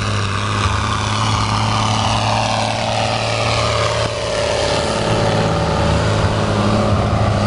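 Diesel engine of a red New Holland tractor running steadily at close range, with a higher whine that falls in pitch over the first few seconds.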